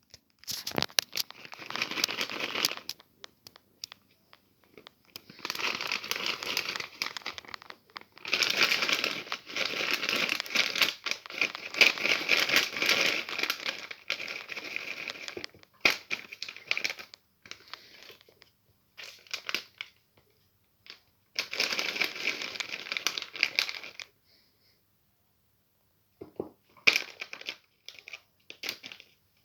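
Plastic cat-treat packet being crinkled and handled in several long spells of irregular crackling, with short rustles in between.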